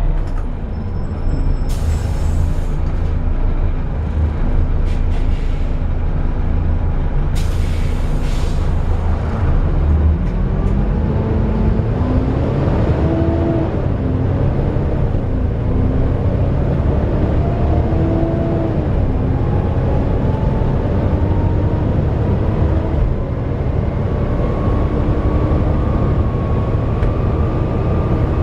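Volvo B7TL double-decker bus's six-cylinder diesel running, with two short air-brake hisses in the first few seconds. It then pulls away, its pitch rising and falling through the gears. A steady high whine comes in near the end: the engine's loud 'hoover' cooling fan.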